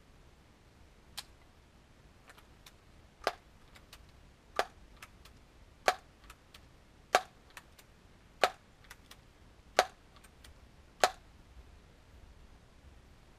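Daisy PowerLine 901 multi-pump air rifle being pumped: about eight strokes of the forearm lever, each closing with a sharp plastic-and-metal clack and a fainter click, roughly one every second and a third, charging the rifle for a shot.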